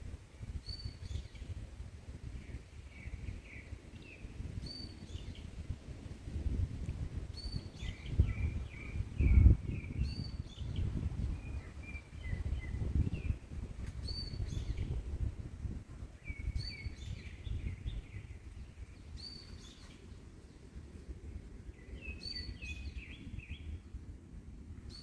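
A songbird repeating the same short phrase every few seconds, a high note followed by a quick run of lower chirps, over wind rumbling on the microphone that gusts strongest about halfway through.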